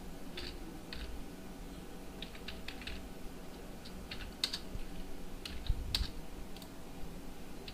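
Computer keyboard typing: irregular key clicks, some single and some in quick runs, as text and editor commands are typed.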